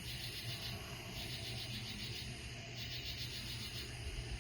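Night insects, crickets, chirping in high, rapid pulsing trains about a second long that repeat over and over, over a faint low background rumble.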